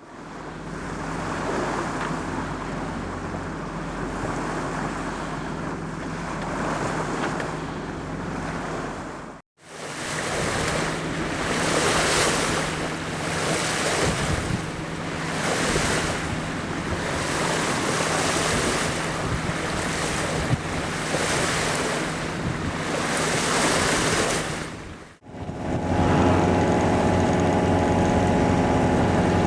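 Sea water rushing past a sailing boat's hull with wind on the microphone, broken by two sudden cuts, the middle stretch surging in regular swells about once a second. About 25 seconds in, a boat engine takes over, running steadily.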